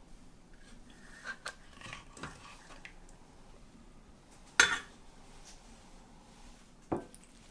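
Dishes and utensils clinking as the cooked dish is served: a few light knocks and scrapes, then a sharp clink about four and a half seconds in and another near the end.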